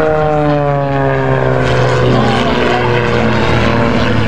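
CAP 232 aerobatic plane's Lycoming six-cylinder engine and propeller droning overhead. The note slides down in pitch over the first couple of seconds, then holds lower and steadier.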